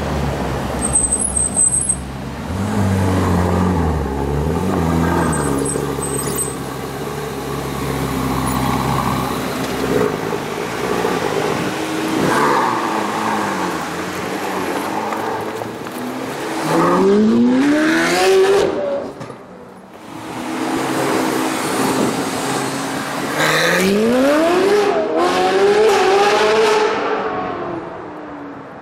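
Novitec-tuned Ferrari 458 Italia's V8 rumbling at low speed, then revving hard twice with the pitch rising sharply: once about two-thirds in, with a brief break and a lift, and again a few seconds later, holding high before fading near the end as the car pulls away.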